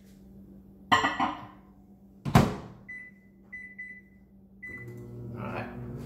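Microwave oven: two clunks as the bowl goes in and the door is shut, then four short keypad beeps, and the oven starts running with a steady hum near the end.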